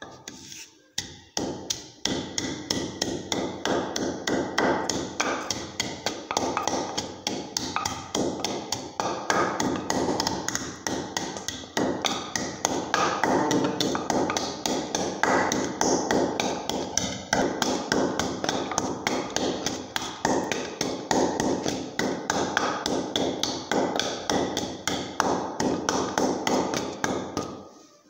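Wooden pestle pounding in a wooden mortar, crushing garlic cloves with sugar and spice: rapid, steady thudding strokes that start about two seconds in and keep on without a break.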